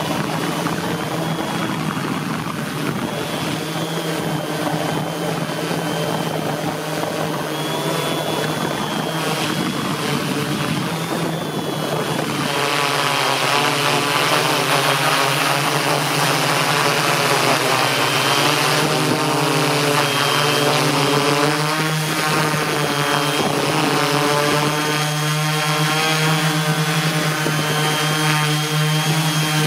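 Align M480L multicopter's electric motors and propellers buzzing steadily in flight. About twelve seconds in the pitch begins to waver up and down.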